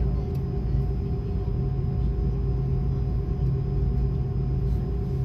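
Steady drone of a Boeing 777-300ER's GE90 turbofan engines running at low power, heard from inside the cabin: a low rumble with a few held hum tones, even throughout.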